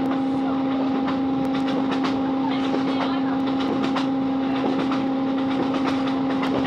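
Inside a Class 165 diesel multiple unit running at speed: a steady drone from the underfloor diesel engine, with wheels clicking over rail joints every so often.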